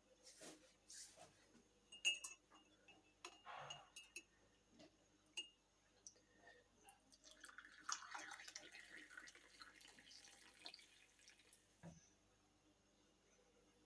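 Faint clinks and taps of kitchen glassware and utensils. About halfway through comes roughly four seconds of liquid being poured.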